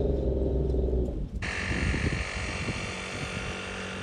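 Steady drone of a kei car's engine and road noise heard from inside the cabin while driving. About a second and a half in it cuts off abruptly and gives way to an outdoor hiss, with wind buffeting the microphone.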